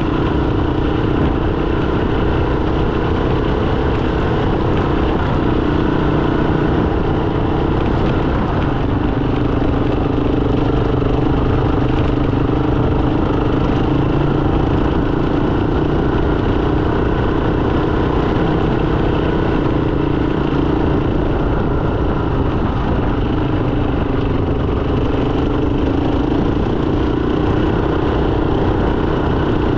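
Motorcycle engine running steadily while riding, with road noise and no marked changes in speed.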